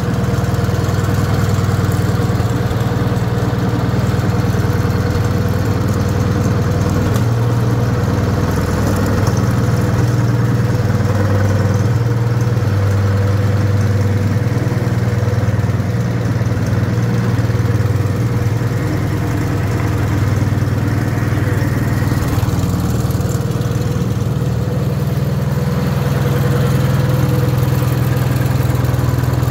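Wisconsin THD two-cylinder air-cooled engine running steadily at idle. Its note shifts a few times as the speed changes. It is fitted with a nylon cam gear that takes out much of the usual gear clatter.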